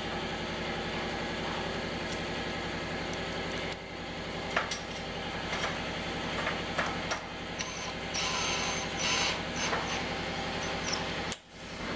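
Aluminum door-frame parts handled and fitted together at a corner, with scattered clicks and taps, over a steady machine hum. A brief buzzing, hissing burst comes about eight seconds in.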